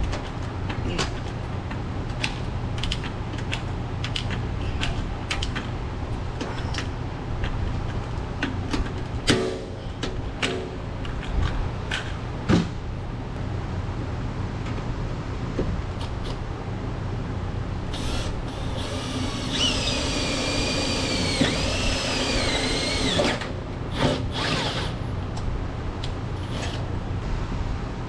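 Power drill running in short bursts, its whine rising and falling with the trigger, over background music with a steady beat.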